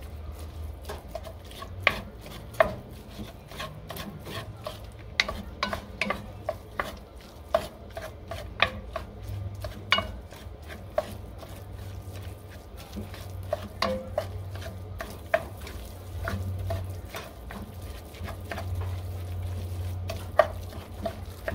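Wooden spoon stirring shredded chicken and shredded cheese in a heavy black pot: irregular knocks and scrapes of the spoon against the pot, with a few sharper clacks, over a low steady rumble.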